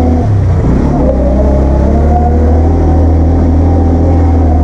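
Motorcycle engine running steadily at low road speed. It wavers briefly in the first second, then settles back to an even note.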